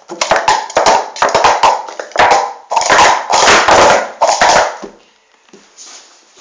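Plastic sport-stacking cups clattering in a rapid 3-6-3 stack and unstack: a fast run of sharp clacks and slides that stops about five seconds in, followed by a few light taps.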